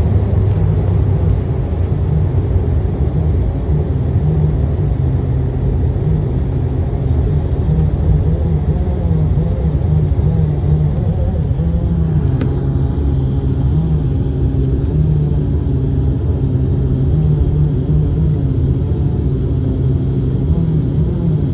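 Steady low engine rumble heard from inside a moving vehicle, its pitch wavering slightly, with one sharp click about twelve seconds in.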